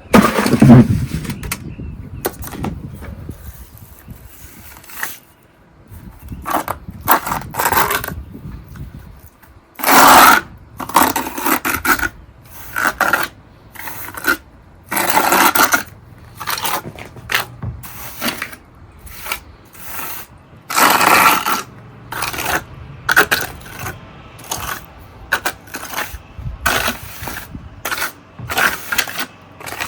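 Irregular scraping and gritty clinking of a pebble-and-powder pool-patch compound being scooped and stirred in a container, in uneven bursts a fraction of a second to about a second long.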